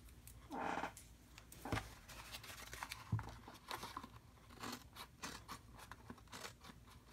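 Scissors snipping through thin patterned paper along the edge of a cardstock box: a string of short, quiet snips. There is a brief rustle of the paper being handled about half a second in.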